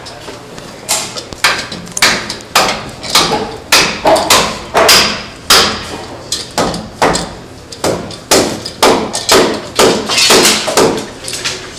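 Hammers striking wood in an uneven series of hard blows, about two a second, from more than one worker, starting about a second in. They are shipwrights' hammers driving the steamed broad plank down into place on a wooden ship's hull.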